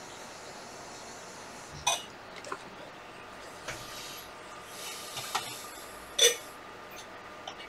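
Steady background hiss with several short, sharp clinks or clicks scattered through it, the loudest about six seconds in.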